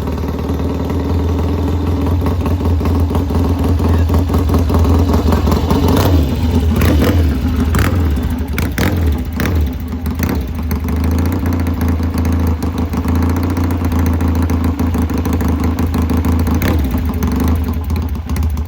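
Classic motorcycle's twin-cylinder engine idling while warming up, with the throttle blipped a few times in the middle so the revs rise and fall before it settles back to a steady idle.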